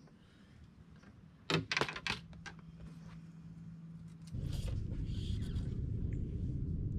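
A few small clicks and rattles of fishing tackle being handled on the boat deck. About four seconds in, a steady low rumbling noise starts.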